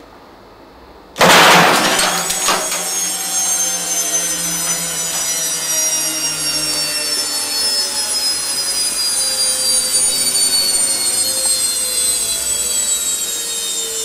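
Washing machine drum unit with its motor, hung in straps and run bare, kicking in abruptly about a second in with a loud clatter, then spinning hard with a steady, harsh rasping noise and a high whine that slowly falls in pitch.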